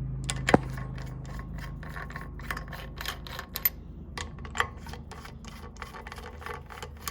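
Small metal parts clicking and rubbing as the loosened nipple cup nuts on a 6.0 Powerstroke oil rail are spun off by hand and set down, with a sharp click about half a second in.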